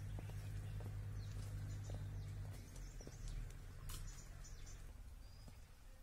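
Footsteps on a loose stony trail, scattered steps that fade as the walker moves away, over a low steady rumble. A few faint bird chirps come in around the middle.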